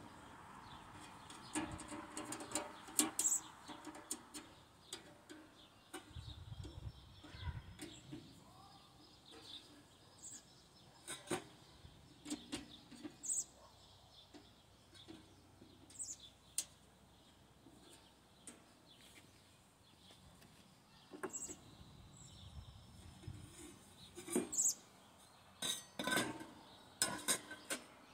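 Stainless steel sheet-metal parts of a folding camping stove clinking and knocking now and then as they are handled and fitted together, with a quick run of knocks near the end.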